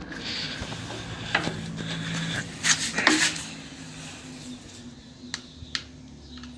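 Two refrigerator compressors, driving a homemade air compressor, hum steadily as they run. A few sharp clicks and knocks come over the hum, the loudest about three seconds in.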